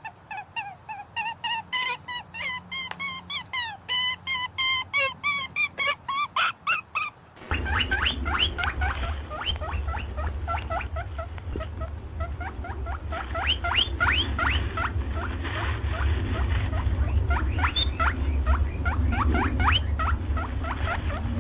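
High-pitched animal chirps: first a rapid run of short repeated calls, then, after an abrupt change about seven seconds in, a different recording of quick rising chirps over a steady low rumbling noise.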